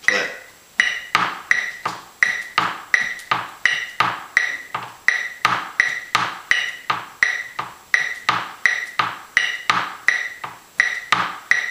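Felt-headed tenor drum mallets striking a wooden tabletop in a steady rhythm, playing a pipe band tenor drum part, with an electronic metronome beeping the beat.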